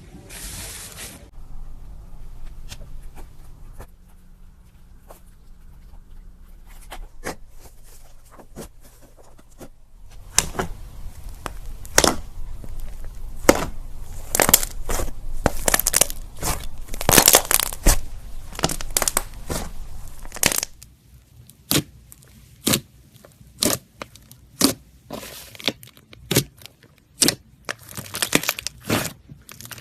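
Slime being played with, crackling and clicking. There are scattered clicks at first, then a dense run of sharp crackles in the middle, then separate pops a little over one a second near the end.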